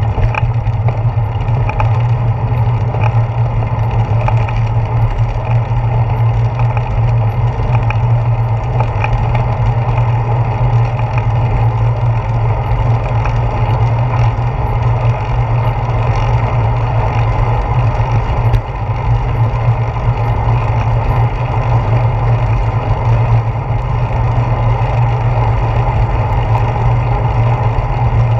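Steady low rumble and rush picked up by a handlebar-mounted GoPro Hero 4 on a moving bicycle: wind across the camera and road vibration carried through the handlebars as the bike rolls along a paved path.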